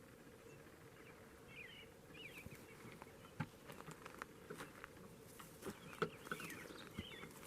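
Faint outdoor ambience with a few short chirps from small birds and a low steady hum. From about three seconds in there is a scatter of small clicks and rustles.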